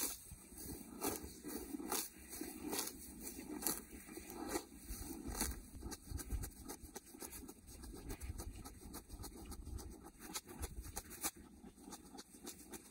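Cow grazing, tearing off mouthfuls of pasture grass: a run of short, irregular ripping sounds, a few a second.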